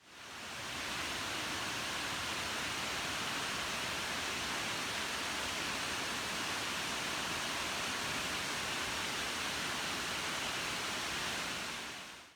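TIG welding arc from a hitbox TIG200PACDC welder, a steady, even hiss that swells in over about a second and fades out near the end.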